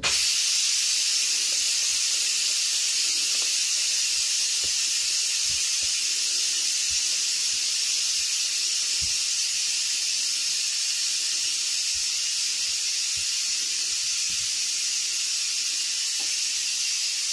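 Instant Pot electric pressure cooker releasing steam through its valve at the end of its cooking cycle: a steady hiss that starts abruptly and keeps going.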